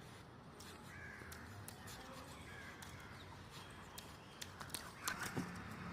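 Faint background with a few short, scattered bird calls and several sharp clicks near the end.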